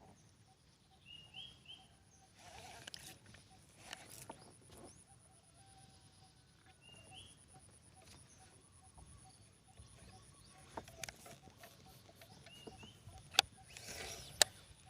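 Bird calls: three brief groups of short, high chirps well apart, over a steady faint high whine. Two sharp knocks near the end.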